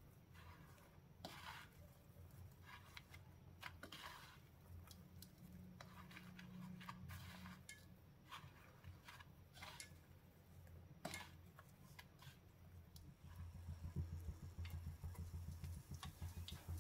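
Faint scattered taps and scrapes of a bread slice being handled in breadcrumbs on a plate. About thirteen seconds in, a steadier, louder low pulsing sound starts: a breaded bread slice frying in shallow oil in a pan.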